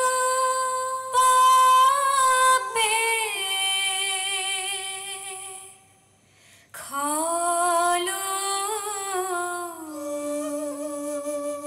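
A solo voice singing a slow, sustained melody with long held notes, with a brief pause about six seconds in before it resumes on a lower line.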